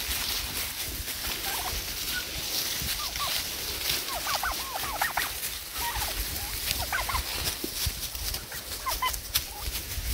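Domestic turkeys gobbling in several short rattling bursts, the busiest about four to five seconds in, over a steady background hiss.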